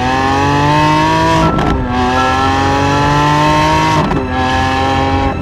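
V12 sports-car engine accelerating hard through the gears. Its pitch climbs, drops at an upshift about a second and a half in, climbs again, and drops at a second upshift about four seconds in.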